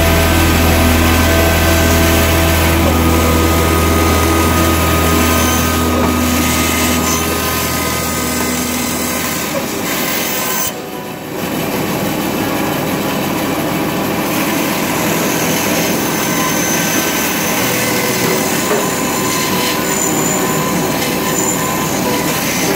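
Bandsaw running and cutting thin wood pieces: a steady motor hum with the sound of the blade in the wood. It dips briefly about halfway through, then carries on.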